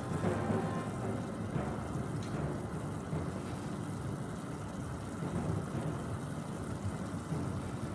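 Soup boiling in a pot around a thawing frozen block: a low, steady bubbling.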